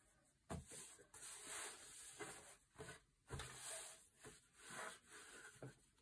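Fabric pieces rustling and sliding on a sewing table as they are handled and smoothed, in a series of soft brushing sounds with a couple of light taps.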